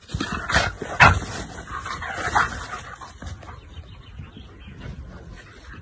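Bernese Mountain Dog making a few short, sharp sounds, with the strongest about a second in, then quieter.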